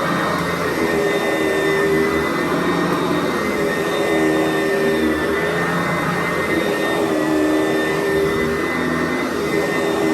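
Sanitaire SC889B upright vacuum running with a steady high motor whine, and a lower hum under it that comes and goes every two to three seconds.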